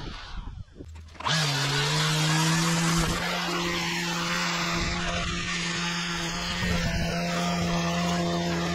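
String trimmer (whipper snipper) edging along a kerb. It cuts in about a second in, its pitch climbs briefly as it comes up to speed, then holds a steady high-speed whine.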